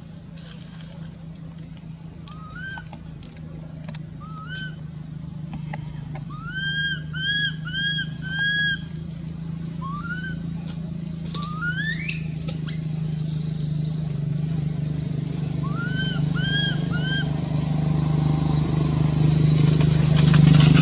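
Infant macaque crying: short, arched, whimpering calls, mostly in quick runs of three or four, with one sharp rising squeal about twelve seconds in. A steady low engine drone runs underneath and grows louder toward the end.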